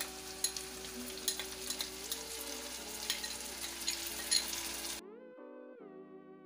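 Onions and masala paste sizzling in hot mustard oil in a kadhai, with sharp clicks of a spoon scraping the paste out of a bowl and a steel spatula against the pan, over faint background music. About five seconds in the frying sound cuts off suddenly, leaving only soft music.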